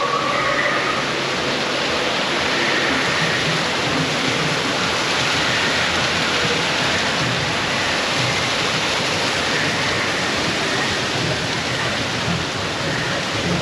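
Waterfall: a loud, steady rush of falling water, an even hiss that holds without a break.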